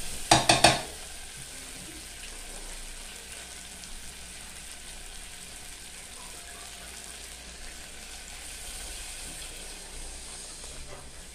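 Three quick ringing knocks of a spatula tapped on the rim of an aluminium saucepan, then beans, garlic and oil frying in the pot with a steady sizzle. Near the end water is poured into the pot.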